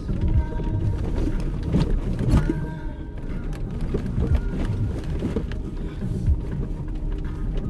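Background music over the steady rumble of a Jeep driving a rough dirt trail, with irregular knocks and jolts from the bumps.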